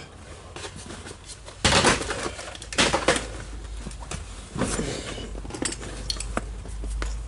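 Metal hand tools clinking and clattering against metal in several short bursts, loudest about two seconds in, as a bolt is worked out of an engine's ignition coil mount.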